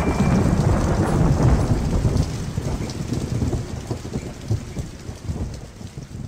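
A low, rumbling, crackling noise that fades away steadily over several seconds; the last held note of the intro music dies out right at the start.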